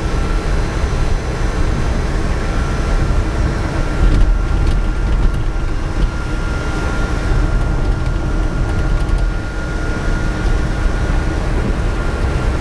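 Cabin sound of a Reva G-Wiz electric car under way: a steady rumble of tyre and road noise with a thin, high, steady whine from the electric drive running over it, its pitch edging up a little over the first few seconds.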